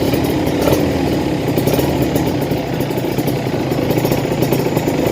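Kawasaki Ninja RR's 150 cc two-stroke single, on an aftermarket exhaust with the stock carburettor, running steadily at idle.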